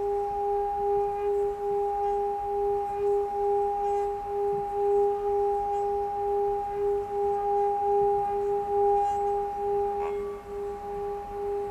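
Singing bowl ringing steadily with two clear tones, a low one and one an octave above, the lower tone pulsing in a slow regular beat.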